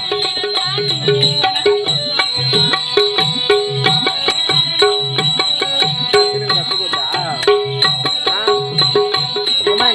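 Live folk-theatre music: tabla drums playing a steady repeating rhythm under long held keyboard notes, with a few sliding notes in the melody near the end.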